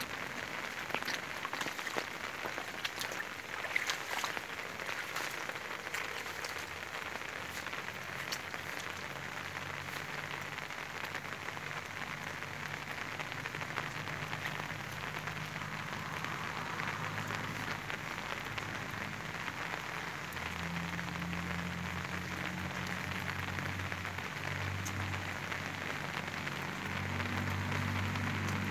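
Steady rain falling on grass and a standing puddle, an even hiss with scattered ticks of single drops. A low rumble joins about a third of the way in and grows stronger toward the end.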